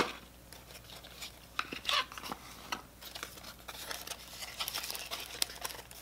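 Cardboard packaging being handled: a small white paperboard box and its inner cardboard sleeve sliding, scraping and rustling in short, scattered bursts, with a louder rustle about two seconds in.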